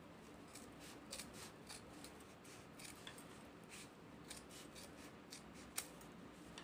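Large dressmaking shears cutting through folded, padded quilted fabric: a run of faint, irregular snips.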